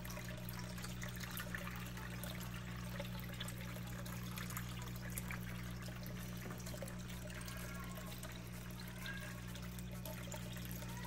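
Small terrarium waterfall trickling steadily over painted spray-foam rockwork, over a constant low hum.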